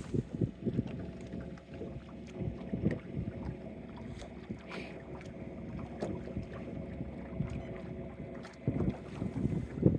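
Swell water slapping and knocking irregularly against a small boat's hull as it rocks at rest, with wind buffeting the microphone.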